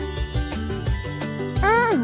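Children's cartoon background music with light tinkling notes. Near the end a character's voice gives one short sound that rises and then falls.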